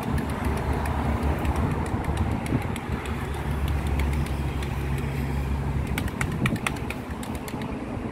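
Road vehicles passing close by: a steady engine rumble with a low hum, and a run of sharp clicks about six seconds in.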